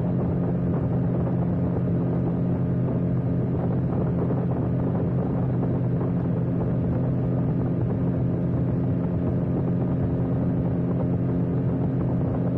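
Force 120 HP inline four-cylinder two-stroke outboard motor (1996) running steadily at high speed, with water rushing past the hull under the engine note.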